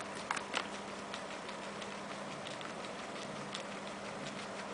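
Guinea pigs chewing carrot: a rapid, irregular scatter of small crisp crunching clicks, with a couple of louder crunches about half a second in.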